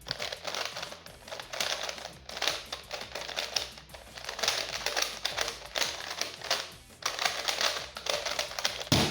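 DianSheng Googol 9 cm magnetic 3x3x3 speedcube being turned fast in a speedsolve: a continuous clatter of plastic clicks in quick clusters. A sharp knock comes near the end as the solve finishes.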